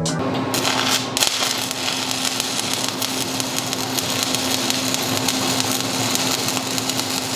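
Stick (arc) welding on a steel plate: the arc crackles and sizzles steadily as the electrode burns, with a steady low hum underneath.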